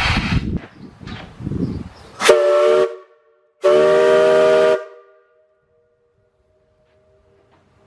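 Steam whistle on a boiler blown twice: a short blast, then a longer one about a second later, each with several pitches sounding together. A rush of steam stops just before them.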